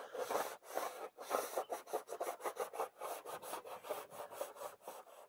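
A paper towel wet with rubbing alcohol scrubbed quickly back and forth along a painted gutter's front edge, a rough rubbing rasp at several strokes a second, cleaning the edge hard enough to take paint off.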